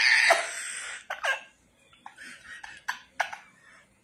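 A woman laughing: a loud burst of laughter in the first second, then short breathy spurts of giggling that trail off.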